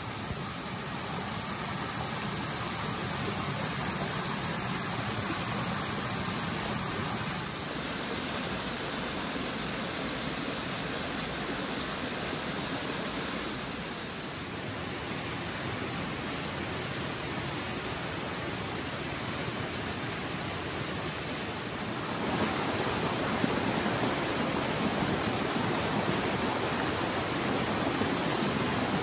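Small mountain creek cascades: water pouring and splashing over rock ledges in a steady rush. The rush changes abruptly a few times and is louder in the last several seconds.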